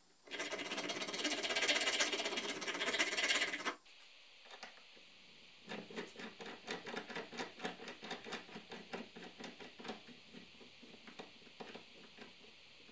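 A thread restoring file rasping back and forth over a steel stud's threads, stopping abruptly after about three and a half seconds. After that, a nut is turned by hand along the repaired threads, giving light metal ticks about four a second.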